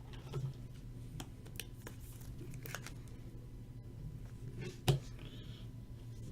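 Trading cards being handled: light rustling and scattered soft clicks, with one sharper click about five seconds in, over a steady low hum.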